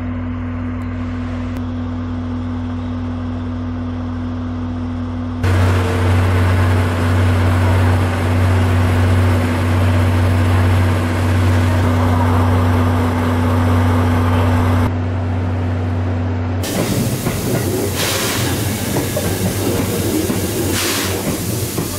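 A JNR Class DE10 diesel-hydraulic locomotive's V12 engine idling with a steady low hum, louder from about five seconds in. About five seconds before the end the hum gives way to steady steam hissing from a C11 steam tank locomotive standing at rest.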